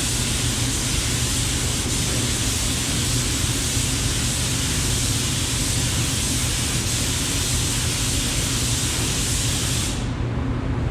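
Compressed-air gravity-feed spray gun hissing steadily as it sprays epoxy primer, cutting off suddenly near the end as the trigger is released. A steady low hum runs underneath.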